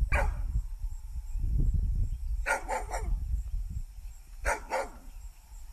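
A dog barking in short, sharp barks: one bark, then three in quick succession about two and a half seconds in, then two more near the end.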